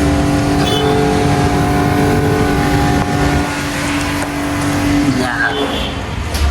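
Road traffic: steady engine rumble with a long, steady tone held for about five seconds that drops and stops, then a short rising whine.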